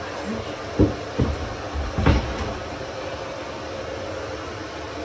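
Old bathroom vanity top being worked loose from its wooden cabinet: three dull knocks and thuds in the first couple of seconds, the last the heaviest, over a steady background hum.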